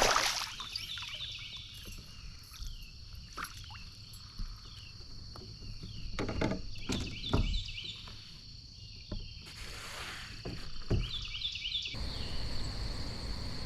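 Outdoor creek ambience from a kayak: a steady high insect drone with short chirping calls repeating over it, broken by a few sharp knocks and a brief rushing sound about ten seconds in.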